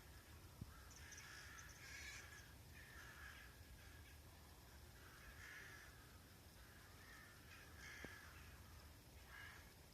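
Faint, distant calls of a mixed corvid flock, Daurian jackdaws among a large flock of rooks: short calls repeated every second or so, often overlapping.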